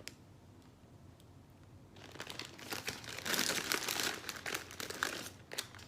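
A crinkly chip bag rustling as a hand rummages in it, starting about two seconds in and lasting a few seconds, with a few faint clicks before it.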